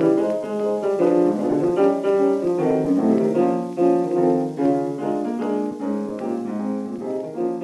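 Background piano music: a steady stream of quick, evenly spaced notes.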